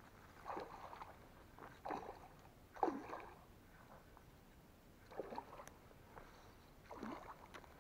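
A small hooked fish splashing at the surface of the water as it fights the line, about five short splashes with the loudest about three seconds in.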